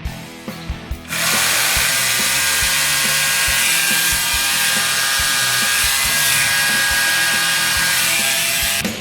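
Battery angle grinder converted into a chainsaw, running loud and steady, starting about a second in and stopping just before the end.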